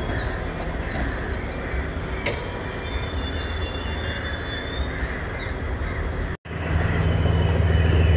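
Passenger train coaches rolling past on curved track: a steady rumble of wheels on rail with some high wheel squeal, and birds chirping over it. About six seconds in it cuts off abruptly, and a louder, deep steady engine drone takes over.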